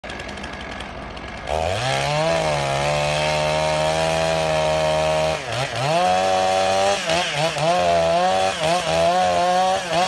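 Two-stroke chainsaw cutting into the trunk of a large conifer. After a quieter start it revs up to full speed about a second and a half in and holds steady. Its pitch drops briefly near the middle, then wavers unevenly as the chain bites under load toward the end.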